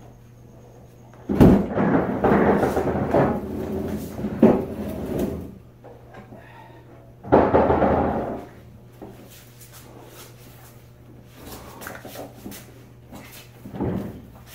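Heavy scraping and knocking as a large refrigerator is slid and shifted, in two bouts: a long one of about four seconds starting just over a second in, then a short one about seven seconds in, followed by a few lighter knocks.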